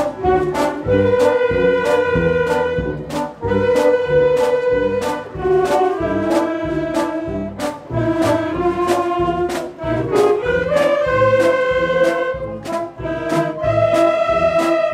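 Wind band of saxophones, clarinets and brass playing a paso doble: sustained melody notes over a steady march beat.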